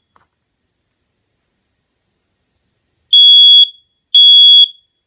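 Kidde combination smoke and carbon monoxide alarm sounding on its test button: about three seconds in, two loud, piercing, steady beeps of about half a second each, a second apart, the start of its three-beep temporal (code 3) fire pattern.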